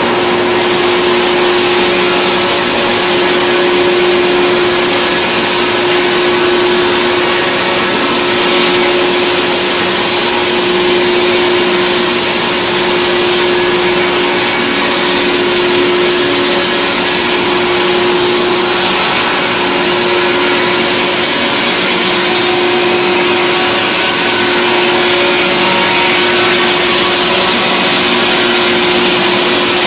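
Log-milling machine running steadily: a loud, even rush of machine noise with a constant hum.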